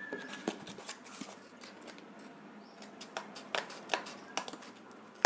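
Scissors snipping through cardboard in a series of short, crisp cuts that come at irregular intervals.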